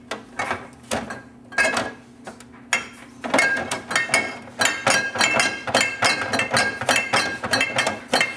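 Glass bottles and jars in a refrigerator clinking and knocking together as a toddler handles them, a few separate knocks at first, then rapid, continuous clinking with a glassy ring from about three seconds in.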